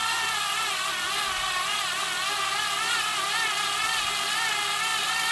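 Skil iXO cordless screwdriver's small motor and all-metal planetary gearbox running under load while driving a wood screw into wood. It gives a steady gear whine whose pitch wavers slightly as the load changes, a bit more gear-noisy because its plastic first-stage gears were swapped for metal ones.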